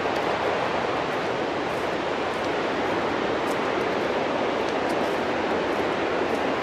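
Lampson Falls' water rushing steadily, a constant roar-like hiss with no change in level.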